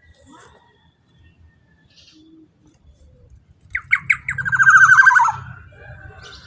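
Black-naped oriole (kepodang) calling: faint scattered chirps, then, more than halfway through, three sharp falling notes followed by a loud, rapid run of notes lasting about a second and dropping slightly in pitch.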